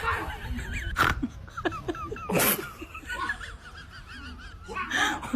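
Farmyard geese honking, with small birds chirping and trilling throughout and two short, harsh bursts about one and two and a half seconds in.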